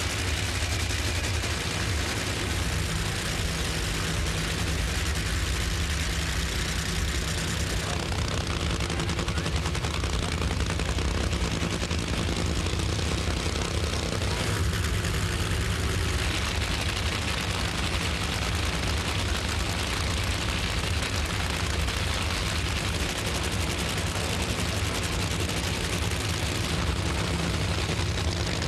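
Nitro-burning drag racing engines running: a loud, continuous rumble with rapid gunfire-like crackle and no pauses.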